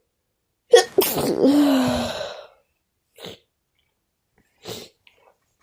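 A person sneezes once, loudly: a quick catch of breath, then the burst, with a voiced "choo" that falls in pitch and fades over about a second and a half. Two short, faint sniffs follow.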